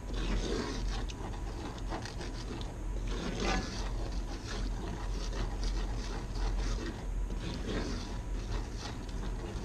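Wooden spoon stirring and scraping a thickening stock-and-flour sauce around a cast iron skillet, irregular scratchy strokes over a steady low hum.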